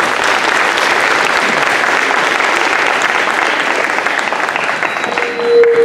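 Audience applauding: dense, steady clapping that thins out near the end, with a brief steady tone sounding over it near the end.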